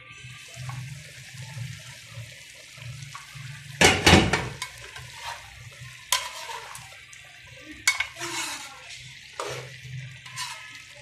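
A metal pot lid comes off an aluminium cooking pot with one loud clatter about four seconds in. A spoon then stirs and knocks against the pot several times through chicken and cauliflower cooking in the cauliflower's own released water, over a steady hiss of simmering.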